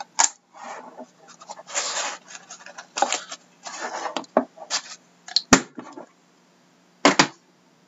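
Hands handling a sealed card box and its wooden outer case on a desk: scraping and rubbing as the box is slid out and set down, with a sharp click about five and a half seconds in and a short knock near the end.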